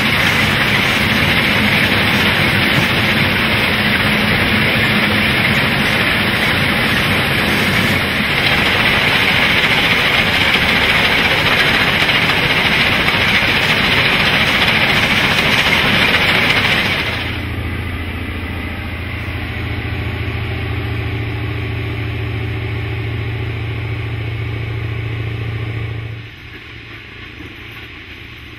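Heavy railway track-renewal machinery at work: a loud, dense mechanical noise for about seventeen seconds, then, after an abrupt change, the steady hum of a track machine's diesel engine, which drops quieter near the end.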